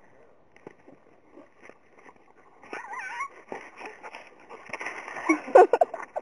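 Dog whining in short, wavering cries during rough play-wrestling. The cries come mostly in the second half and grow louder near the end, with a few sharp knocks.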